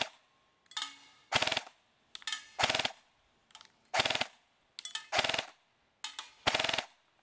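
Valken Battle Rifle airsoft electric gun, fitted with an AMP high-torque motor and an 11.1 V lipo battery, firing short rapid bursts about every second and a quarter, with fainter rattles between them.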